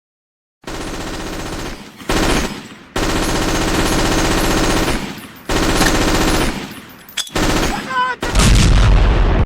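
Machine-gun fire in long sustained bursts, about six of them with short breaks between, the last the heaviest.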